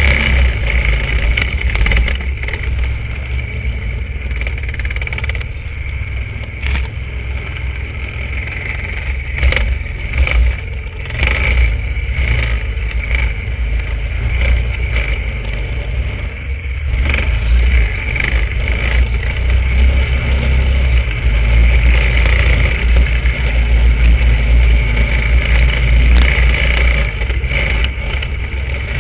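Vintage snowmobile engine running while riding along, its speed and loudness rising and falling with the throttle and loudest about three-quarters of the way through, over a heavy low rumble of wind and motion on the microphone.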